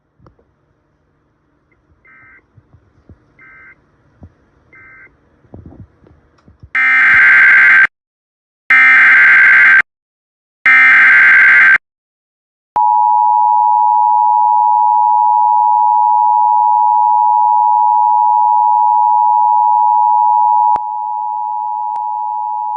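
Emergency Alert System tones: three loud data bursts of the SAME header, each about a second long and a second apart, then the two-tone attention signal (853 and 960 Hz together), a steady loud tone held for about ten seconds that drops in level near the end. It announces a flash flood warning. Before the bursts come three faint short beeps.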